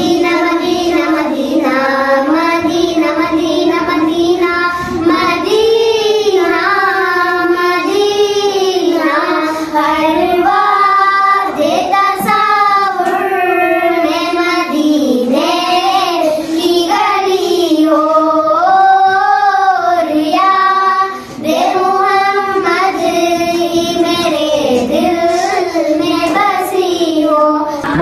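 Four young schoolgirls singing a naat together in unison: one sung melody in phrases, with short breaks between lines.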